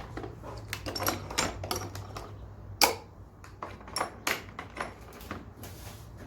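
Metal parts of a valve spring compressor tool clicking and clinking as it is taken off a BMW N62 V8 cylinder head: a quick series of sharp clicks, the loudest about three seconds in.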